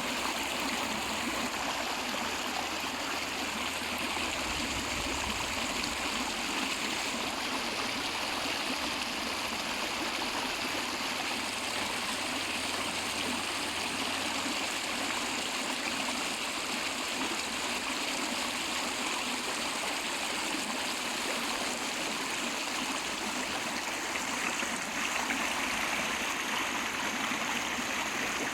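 River water flowing steadily, a continuous rush of running water.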